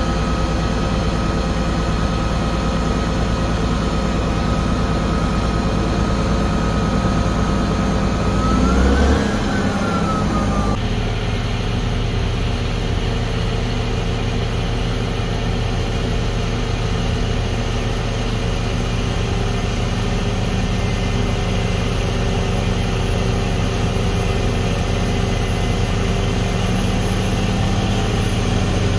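Caterpillar D7R bulldozer's diesel engine running steadily while dozing snow, with a brief rise and fall in pitch about nine seconds in. The sound changes abruptly about eleven seconds in, then runs steadily again.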